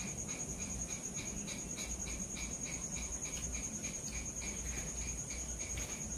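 Crickets chirping: a steady high, finely pulsing trill with a second, lower chirp repeating about four times a second, over a low background rumble.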